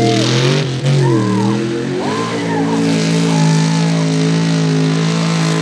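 Mud truck's engine in an old Ford pickup, revving hard as its tyres spin through a mud pit. The engine pitch dips and comes back twice in the first two seconds, then holds high and steady, over a spray hiss from the tyres.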